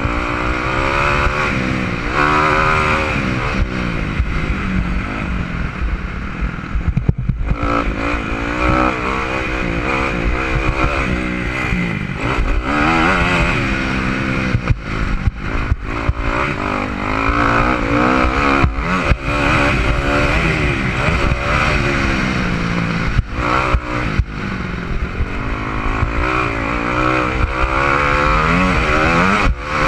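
Motocross dirt bike engine at racing throttle, revving up and dropping back again and again as the rider accelerates, shifts and rolls off for corners. The engine note falls away briefly about seven seconds in before it picks up again.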